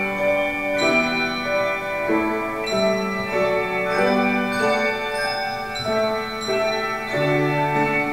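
Handbell choir ringing a slow melody in chords, a new chord struck about once a second with the bells ringing on between strikes.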